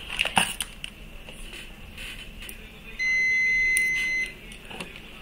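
Digital multimeter in diode mode giving one steady high beep about three seconds in, lasting just over a second, as its display reads 0.0000: the meter's signal of a near-zero reading across the probes. A few light clicks of the probes come before it.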